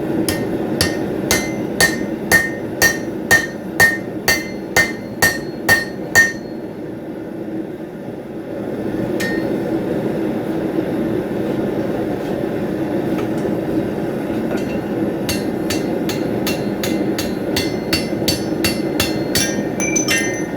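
Blacksmith's hammer striking hot steel on the anvil while enlarging a punched hole, each blow ringing sharply. About twelve evenly spaced blows, roughly two a second, stop about six seconds in; after a pause a quicker run of lighter blows starts near the end. A steady low rushing noise runs underneath.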